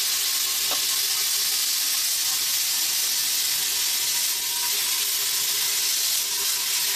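Handheld plasma cutter hissing steadily as it cuts through the steel wall of an air compressor tank, an even rush of air and arc with a faint steady tone underneath.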